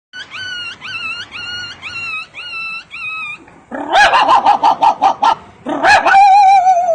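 A man imitating a dog with his voice: six short high-pitched rising whines, then a quick run of yaps, then one held wavering howl near the end.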